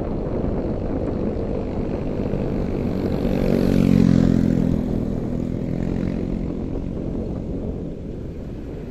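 Wind rumbling on the microphone, with a vehicle engine that swells up and fades away around the middle as it passes by.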